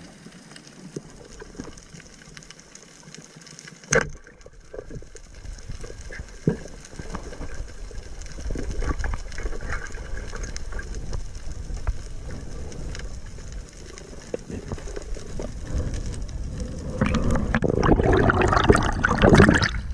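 Water sloshing and splashing, with a few sharp knocks; the splashing grows louder near the end.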